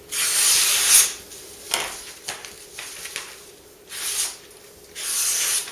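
A string of short scraping, rubbing sounds, with the longest strokes at the start and near the end, over a faint steady hum.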